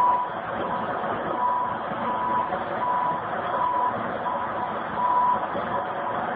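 Backup alarm on heavy demolition equipment beeping steadily, about three beeps every two seconds, over the noise of the machine's running engine.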